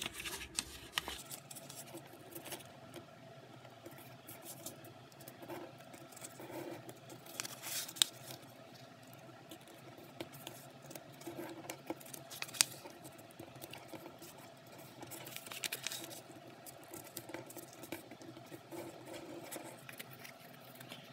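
Sheet of acid-free drawing paper being folded by hand into accordion pleats: soft rustling and scratching of paper and fingertips, with two sharper clicks about eight and twelve and a half seconds in.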